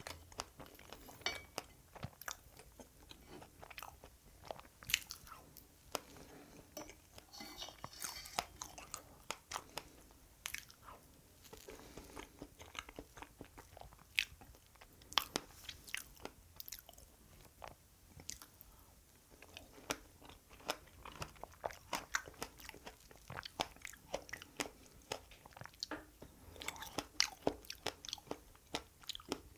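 Close-miked chewing and biting while eating strawberry cake with fresh strawberries: a run of small, irregular wet mouth clicks and soft crunches.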